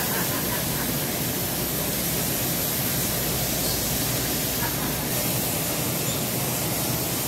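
Steady, even hiss of factory machinery at an automated station working an aluminium casting, with a couple of faint ticks.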